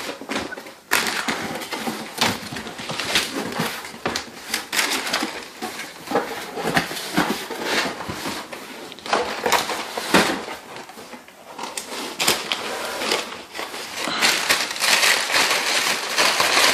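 Cardboard shipping box being opened by hand: packing tape and cardboard crackling, tearing and rustling in many irregular bursts, with a longer stretch of scraping, tearing noise near the end.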